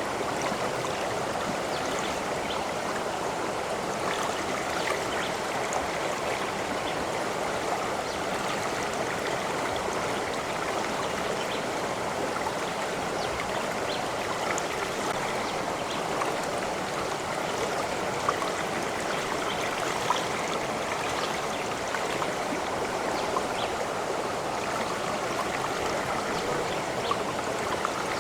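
Stream of water running steadily, a continuous babble with a few small splashes.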